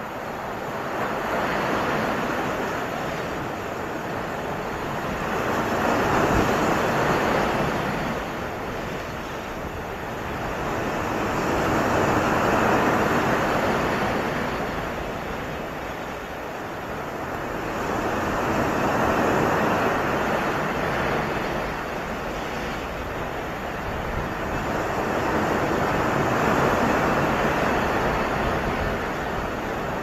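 Sea surf breaking on a sandy shore and around rocks, swelling and washing back in slow surges about every six or seven seconds.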